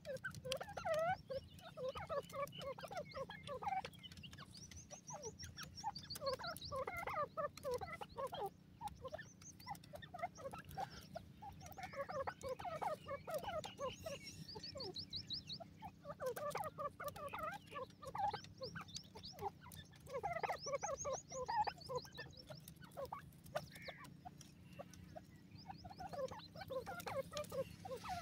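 Gray francolin giving bursts of short, quick call notes, each burst lasting a few seconds, repeated throughout. A higher, rapid trill comes in between several times.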